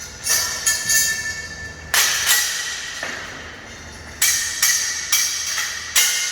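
Steel scaffolding parts clanking and ringing as they are knocked apart and handled during dismantling: sharp metallic clanks at irregular intervals, about one a second, each ringing on briefly.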